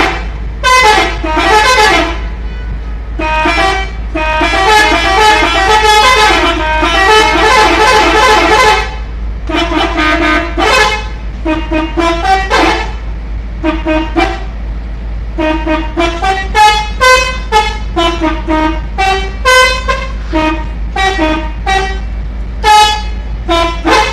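Indonesian 'telolet' bus horn, a multi-tone musical horn, played in quick melodic toots of changing pitch. About four seconds in it sounds one longer run of overlapping tones lasting some five seconds, then returns to short toots.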